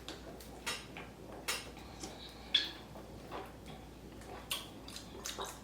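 A person drinking: a series of about nine quiet, short clicks and knocks at irregular spacing, the sounds of gulping and handling the cup.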